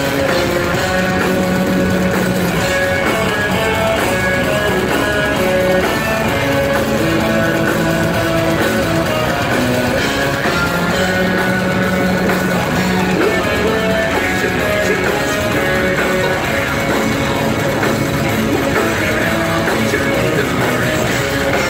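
Folk metal band playing loud live music: electric guitars over a drum kit, with accordion holding long notes.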